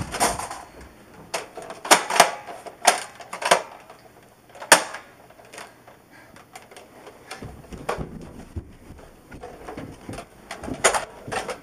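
Irregular sharp clicks and knocks, a few close together in the first seconds, the loudest about five seconds in, then sparser near the end.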